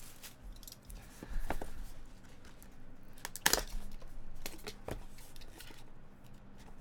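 A cardboard trading-card box being handled, and a utility knife slitting the tape seal on the end of the box: light scrapes and taps, with one sharp click about three and a half seconds in and a run of small clicks after it.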